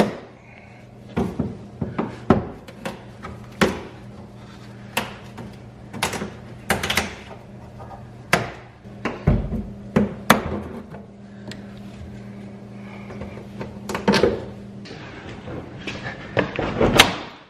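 A socket wrench on an extension working a tight headlight-mounting bolt: irregular sharp clicks and clunks, spaced out at first and then bunched together near the end. A steady low hum sits underneath.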